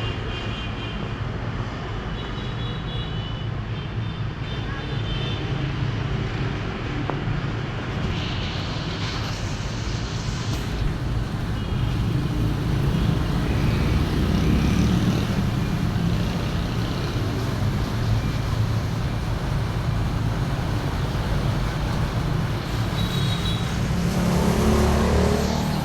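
Road traffic: vehicle engines running and passing in a steady low rumble that swells a little midway and again near the end.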